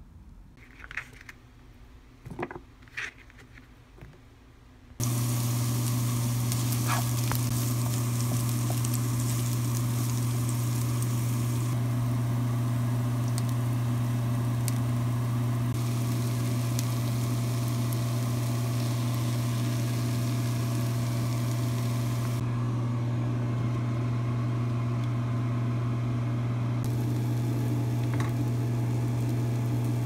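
Fried rice with diced ham, carrot and leek sizzling in a frying pan, over a steady low hum. The sizzle starts suddenly about five seconds in and stays loud and steady.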